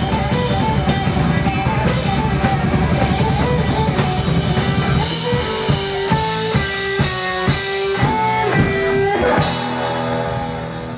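Live rock band with drum kit and guitar playing loud. About halfway in the band breaks into a run of about seven accented hits, roughly two a second, then strikes a final chord that rings out and fades: the end of a song.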